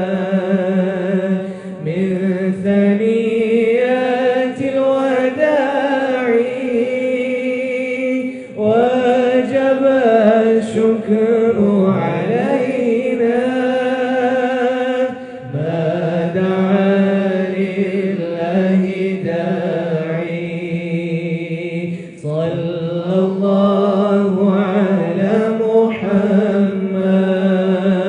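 Group chanting devotional dhikr: long, drawn-out sung phrases, each held for a few seconds, with short breaks between them.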